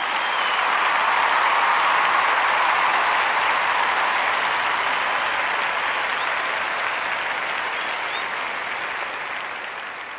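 Crowd applause: dense, steady clapping that slowly fades away near the end.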